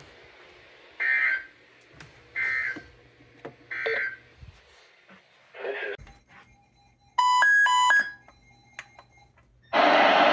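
Emergency Alert System end-of-message data tones from a NOAA Weather Radio broadcast: three short warbling data bursts about a second and a half apart, signalling the alert has ended. A brief run of electronic beeps follows, and a loud hiss starts just before the end.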